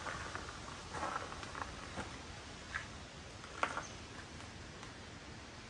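A hiker's footsteps on a trail: a few irregular crunches and scuffs, sparser and quieter after about four seconds.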